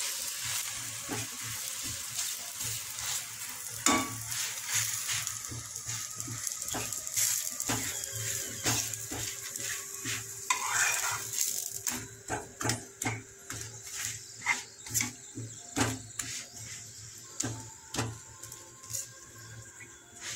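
A garlic paratha frying in a little oil in a nonstick pan, sizzling, while a steel spatula taps and scrapes against the bread and pan. The sizzle dies down about twelve seconds in, leaving mostly the spatula's sharp taps.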